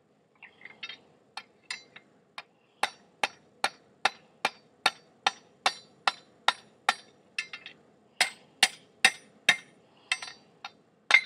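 Blacksmith's hand hammer striking the hot end of a square iron bar on an anvil, upsetting it to form a ball on the end. A few light taps, then steady ringing blows about two and a half a second, broken by two short pauses.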